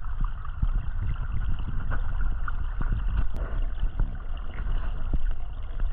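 Water of a small stream gurgling and splashing, with scattered small clicks.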